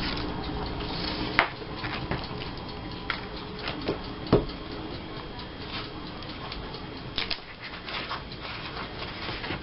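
Scattered light clicks and taps, with a sharp tap about a second and a half in and another just after four seconds.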